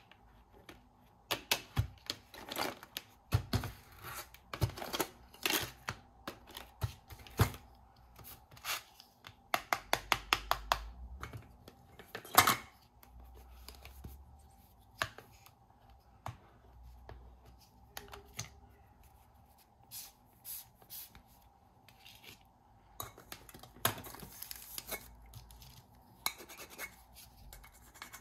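Plastic toy fruits and vegetables from a play kitchen set clicking, knocking and rubbing against each other and a plastic bowl as they are handled, then a plastic toy knife pressed against a toy fruit near the end. Many sharp taps, with a quick run of them about ten seconds in and the loudest single knock a couple of seconds later.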